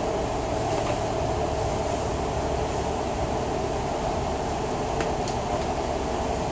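Interior of a moving Citybus bus: the engine and drivetrain running steadily under way, a continuous rumble with a faint steady whine. A faint click or rattle comes about five seconds in.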